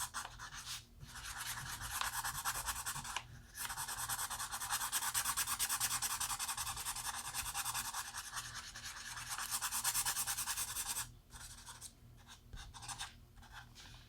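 Alcohol marker scratching across paper in quick, rapid back-and-forth strokes, laying down a base layer of colour. The strokes break off briefly about a second in and again around three and a half seconds in, and go quieter and patchier over the last few seconds.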